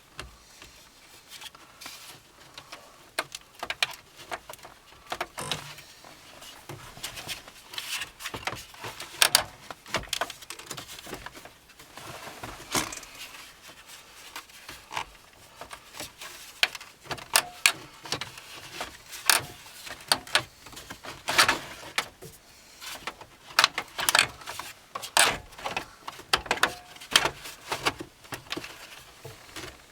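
Irregular plastic clicks, knocks and rattles of dashboard trim being handled and pressed into place, some of them sharp and loud.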